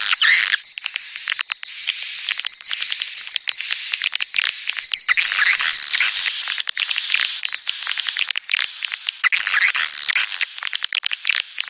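Edible-nest swiftlets twittering in a repeated swiftlet-house call: quick runs of clicky chirps, each ending in a thin, high held note, over and over about once a second. It is sold as the swiftlets' mating and breeding call.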